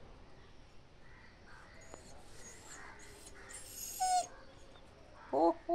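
Indian native dog making short whining 'talking' sounds: a brief high whine about four seconds in, then two short calls near the end.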